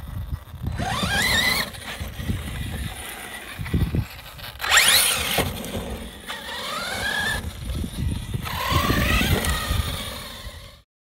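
ARRMA 6S brushless RC car motor whining up in pitch in four throttle bursts, over the rough rumble of tyres on the ground with a few knocks. The sound cuts off abruptly near the end.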